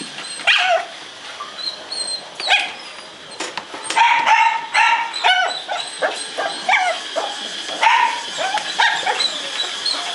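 Small dog yapping in short, high-pitched calls, a quick run of them between about four and six seconds in and more scattered through the rest.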